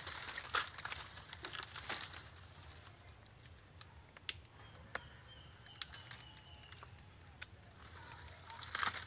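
Dry nipa palm fronds and litter rustling and crackling as hands work at the base of a nipa fruit cluster. Then come a few scattered sharp clicks, and a short burst of them near the end, as a bolo blade trims a nipa fruit segment.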